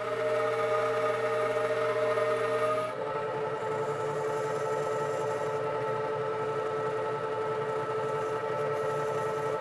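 Metal lathe running under power while turning a steel 5C collet draw tube, its drive giving a steady multi-tone whine. About three seconds in, the whine abruptly changes to a different set of tones and a low hum drops away.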